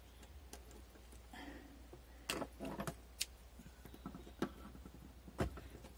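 Fabric and small sewing parts being handled on a table: light rustling with a scatter of small clicks and taps, one sharper click near the end.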